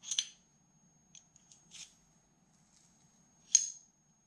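Metal parts of a stripped Llama .32 pistol clicking and scraping against each other as the slide and barrel are handled. A short scrape comes at the start, then a few light ticks, then a sharper click about three and a half seconds in.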